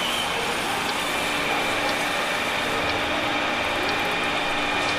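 Auto repair workshop ambience: a steady mix of machinery hum and mechanical noise, with faint light clicks about once a second.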